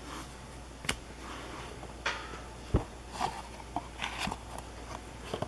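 Cardboard hockey trading cards being flipped through by hand, card by card: irregular soft rustles and clicks as cards slide off the stack, with a dull tap just under three seconds in.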